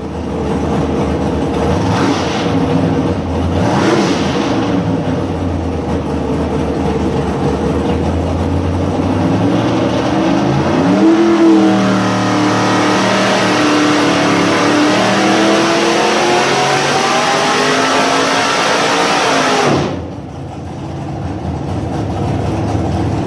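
Big-block Chevrolet V8 alcohol bracket racing engine running on a dyno. It is blipped twice, then held in a long pull with the pitch climbing, and cut off sharply about 20 seconds in, dropping back to a lower, quieter run.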